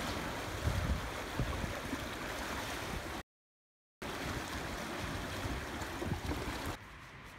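Water rushing down a water slide and churning in its shallow run-out pool, a steady hiss of flowing water. It cuts to dead silence for under a second about three seconds in, then carries on, quieter near the end.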